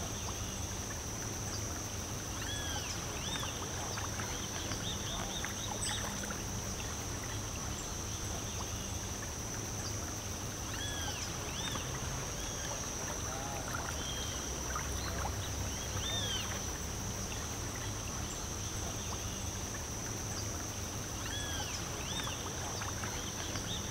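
Outdoor nature ambience: a steady high-pitched insect drone with short arched bird chirps every few seconds, over a low rumble.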